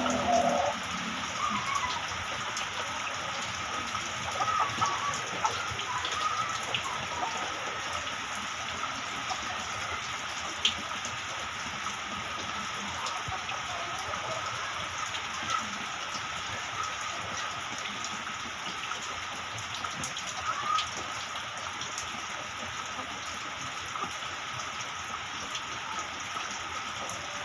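Steady light rain falling, an even continuous patter, with faint short calls or voices now and then.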